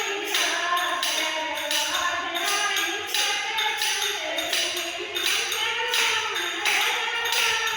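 Voices singing a Hindi devotional bhajan to a steady percussion beat of about one and a half strokes a second.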